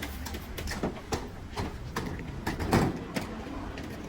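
Scattered clattering knocks and clicks over a steady low rumble, with one louder knock about two-thirds of the way through.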